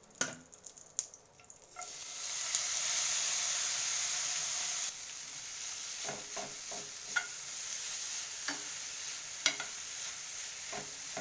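Ground ginger sizzling as it fries in ghee in a non-stick pan. The sizzle starts about two seconds in and eases a little partway through, with a stirring utensil knocking against the pan several times in the second half.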